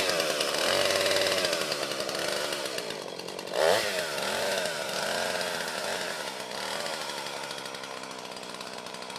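Two-stroke chainsaw engine running and being revved up and down, with one sharp rev about three and a half seconds in.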